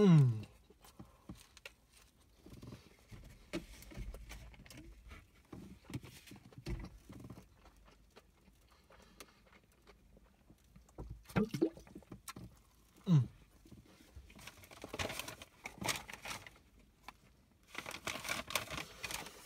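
Small sounds of a person eating: faint scattered mouth clicks and chewing, a few short falling hums or grunts at the start and about two-thirds through, and a rustling near the end as the cardboard burger box is handled.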